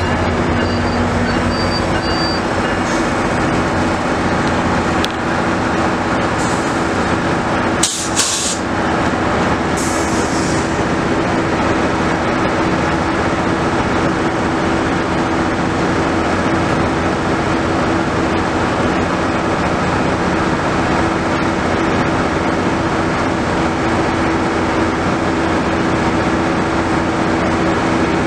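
MARC diesel locomotive standing with its engine idling, a steady loud drone with a hum in it. A short sharp burst of noise comes about eight seconds in, and a brief hiss of air about two seconds later.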